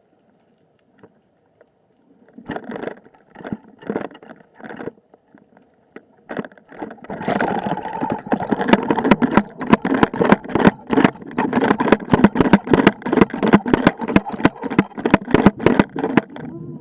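Knocks and rattles picked up by an action camera on an underwater float-and-basket fishing rig, with water rushing past. The knocks come one at a time at first, then from about a third of the way in they run at roughly four a second over the rushing, and they cut off suddenly near the end.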